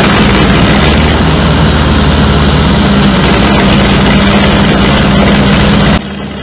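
Large diesel engine running steadily, a loud even drone with a low throb. It cuts off abruptly near the end, leaving a much quieter background.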